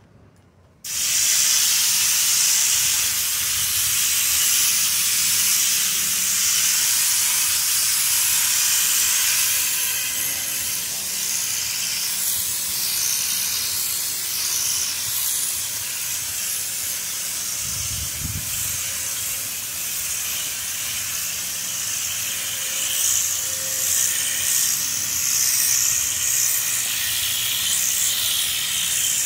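An air-powered spray gun with a Raptor urethane bed-liner bottle screwed on, spraying the coating. It makes a steady hiss of air and atomised liner that starts about a second in and keeps going without a break.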